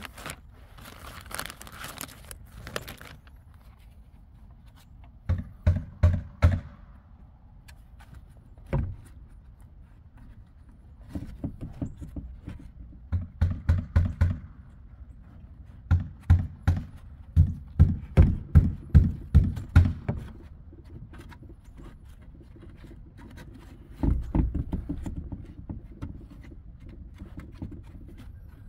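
Bursts of low, dull thumps, several in a row at about two a second, with light clicks between them and a longer rumbling burst near the end.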